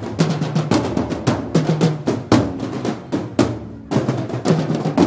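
Marching band drum section playing a street cadence on large marching drums, with loud, quick strikes several times a second, some leaving a short low ring.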